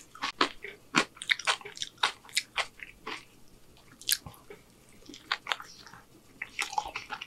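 Close-miked eating sounds: a man chewing a mouthful of burrito, with irregular wet clicks and smacks of the mouth.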